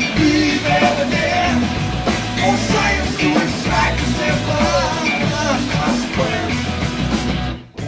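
Live recording of a rock band playing loud, fast, driving rock with a singer's voice over it. The full band stops abruptly just before the end.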